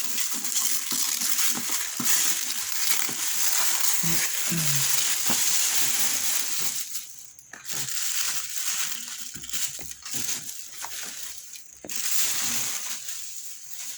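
Paper wrapping being torn off a box and crumpled by hand: a dense crackling rustle, with short pauses about seven and twelve seconds in.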